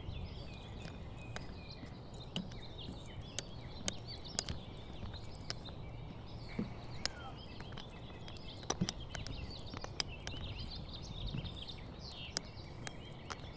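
Forest birds chirping and trilling continuously, over irregular knocking footsteps on a wooden boardwalk.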